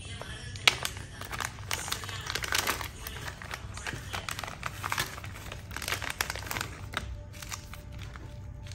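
Clear plastic zip-lock bags of small square mosaic tiles crinkling and rustling as they are handled, with an irregular run of crackles and a sharp click under a second in.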